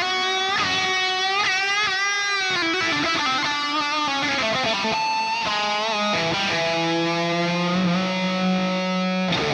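Electric guitar fitted with Seymour Duncan Jupiter passive pickups, played through a high-gain amp as a distorted lead line with bends and vibrato. It ends on a long held low note that cuts off just before the end.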